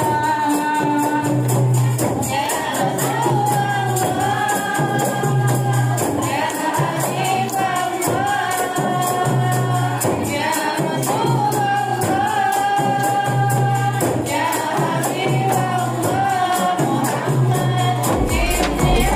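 A group of women singing together, with hand-held tambourines jingling in a steady rhythm and a low bass line pulsing underneath.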